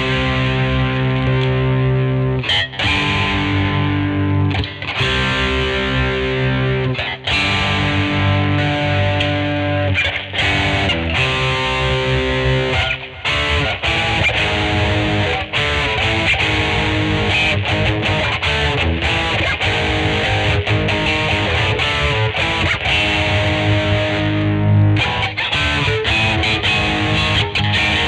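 Squier Vintage Modified Telecaster Thinline electric guitar played through a Peavey Vypyr VIP 2 modeling amp. Held chords are broken by short gaps every two to three seconds, then the playing gets busier from about halfway.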